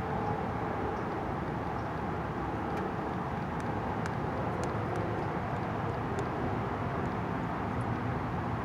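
Steady outdoor background rumble with a faint hum and a few faint ticks.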